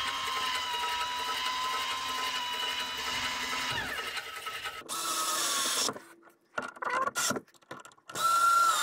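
MaxxFan roof vent fan motor running on test with a steady whine, fed through a newly fitted 12-volt DC voltage regulator, then winding down with a falling pitch about four seconds in. After some short bursts of noise and clicks, an electric screwdriver runs briefly near the end.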